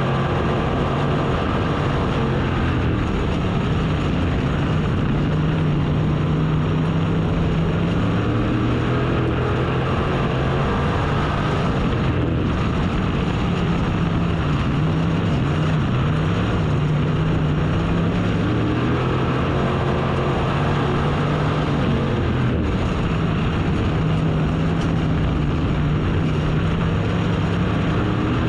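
Race car engine running hard and continuously, its pitch rising and falling a little every few seconds as the throttle is worked through the laps.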